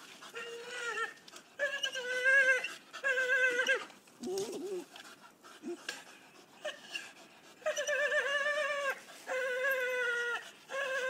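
Staffordshire bull terrier whining excitedly while tugging at a hanging rope toy: a run of high-pitched, drawn-out cries with a lull midway.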